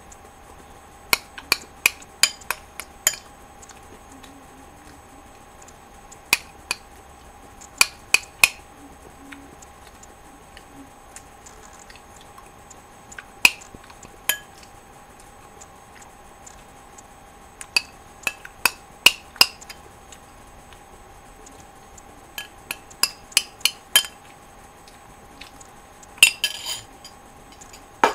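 A spoon clinking against a bowl in scattered clusters of sharp clinks while granola with milk is eaten, over a steady faint hum.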